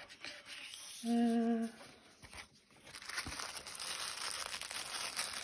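A woman hums one short, steady note about a second in. From about three seconds in comes the crinkling of paper and plastic wrapping as she handles a small gift-wrapped package.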